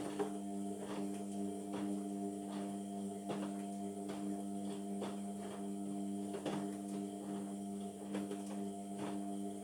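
Indesit washing machine's motor turning the drum in one wash tumble during a Cotton 60 cycle: a steady motor hum with irregular soft knocks as the clothes tumble inside.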